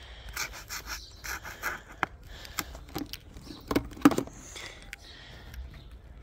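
A paint marker's felt tip rubbing and scratching across the hard plastic of a water gun, in short irregular strokes, with a few sharp knocks from handling, the loudest about four seconds in.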